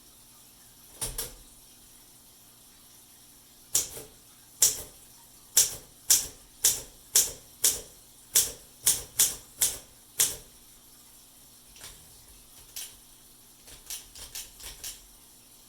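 1955 Olympia SM3 manual portable typewriter being typed on. A double click comes about a second in, then a run of about fourteen sharp keystrokes at roughly two a second, then softer clicks near the end.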